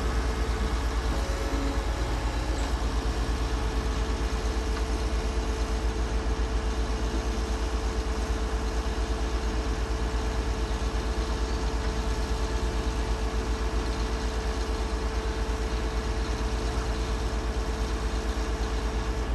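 Heavy diesel engine idling steadily, with an even low throb and a constant hum.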